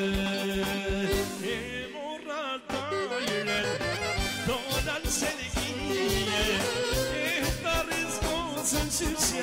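Live band playing Albanian urban folk music: a reed instrument plays a quick, ornamented melody with trills over a steady drum-kit beat.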